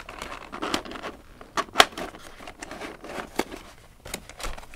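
Thin polypropylene LuvALamps lampshade pieces rustling and crinkling as they are bent and their tabs pushed together, with a series of sharp plastic clicks; the loudest comes a little under two seconds in.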